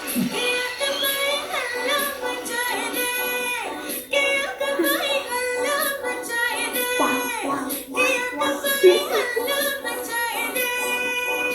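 Music with singing: several voices sing over a steady held tone.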